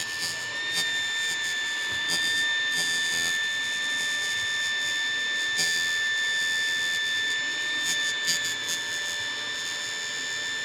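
Electric fan running with a steady high-pitched whine over a scratchy hiss and occasional faint clicks: the noisy 'snoring' sound of a fan running rough.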